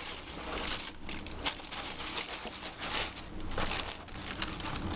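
Cardboard product boxes and their paper packaging rustling and crinkling in a run of short, uneven bursts as they are handled.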